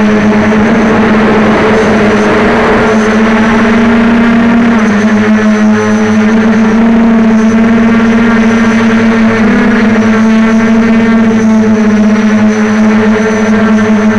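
Quadcopter's electric motors and propellers buzzing in flight, heard from a camera mounted on the frame: a loud, steady hum whose pitch shifts a little a few times as the throttle changes.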